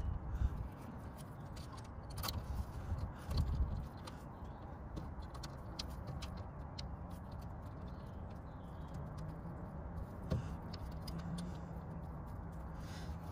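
Scattered small metal clicks and taps as a brake pipe flaring tool's clamp halves and bolts are handled and fitted onto a steel brake pipe, over a low steady rumble.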